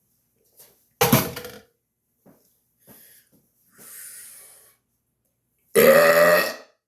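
A person burping twice: a short, loud burp about a second in, then a longer burp near the end, with faint small noises between them.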